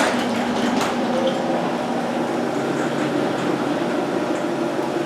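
1999 LiftMaster 1000SDR screw-drive garage door opener starting and running steadily as it raises the door, its motor and screw drive humming with a few clicks in the first second. It is not the smoothest running opener, its screw freshly lubed.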